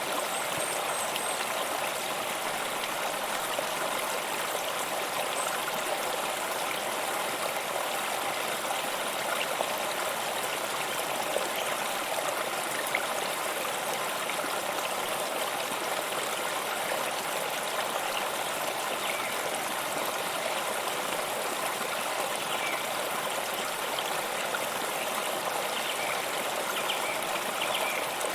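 Waterfall: falling water rushing steadily, an even, unbroken wash of noise that is mostly bright, with little deep rumble.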